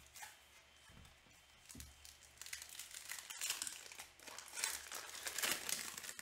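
Foil trading-card pack wrappers crinkling and being torn as sports card packs are opened, in irregular rustles that grow busier after about two seconds.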